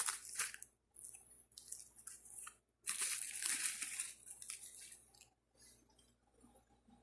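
Packaging being unwrapped by hand: crinkling and crunching in several bursts, fading to faint handling noise after about five seconds.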